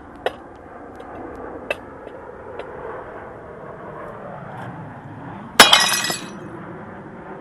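A few faint knocks, then about five and a half seconds in a 6-lb sledgehammer comes down on an upturned green plate and the plate shatters in one loud crash, pieces clattering for about half a second.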